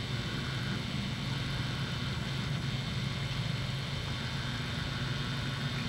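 Steady low hum with a hiss over it and no other events: the background noise of a 1980s camcorder's videotape recording.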